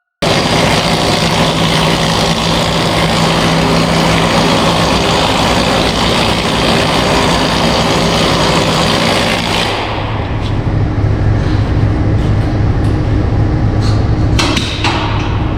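Loud, steady industrial work noise: a dense hiss with a low steady tone. About ten seconds in it gives way to a heavier low hum with scattered sharp clicks and crackles.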